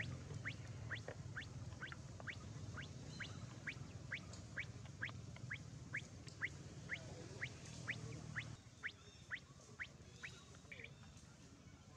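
A bird calling over and over in short, quick rising chirps, about two to three a second, growing weaker near the end. Under it is a low steady hum that stops about three-quarters of the way through.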